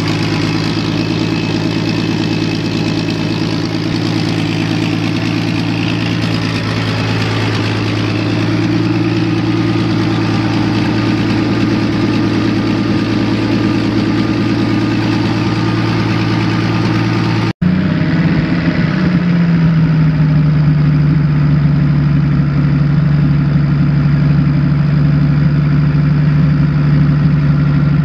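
1966 Chevrolet C60 grain truck's gasoline six-cylinder engine idling steadily. After an abrupt cut about two-thirds through, the engine is heard again; its note eases down briefly and then settles into a steady idle.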